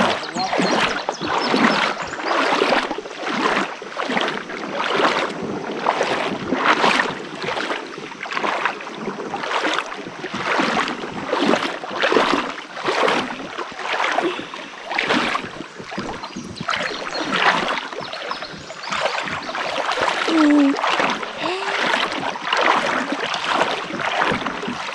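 A kayak moving through shallow river water, with a steady rhythm of splashing swishes, nearly two a second.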